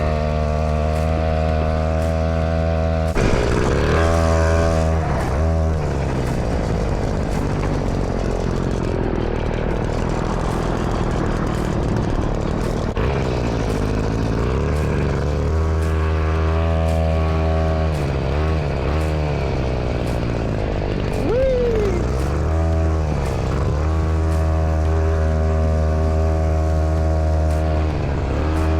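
Small gasoline engine of a vehicle being ridden, running at a steady speed. Its pitch drops and climbs back several times, as when the rider eases off and opens the throttle again.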